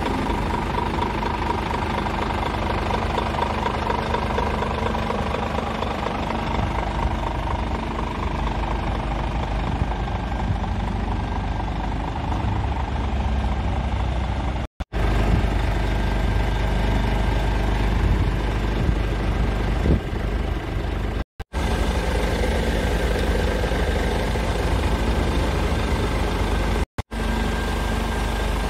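Scania R410 tractor unit's 13-litre six-cylinder diesel engine idling steadily, with three brief dropouts to silence.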